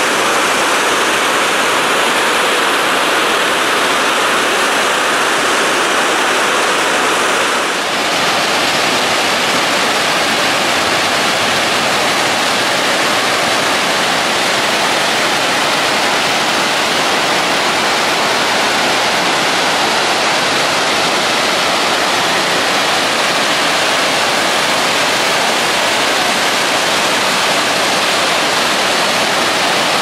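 Iguazu Falls: the loud, steady rush of a huge volume of falling water, without a break. About eight seconds in, the level dips briefly and the rush changes tone, becoming a little fuller and less hissy.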